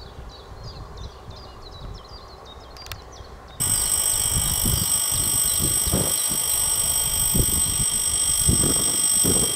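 Small birds chirping, then a little over a third of the way in the railway crossing's electronic warning signal switches on abruptly as its red lights start flashing: a loud, steady, high-pitched alarm tone, with wind buffeting the microphone underneath.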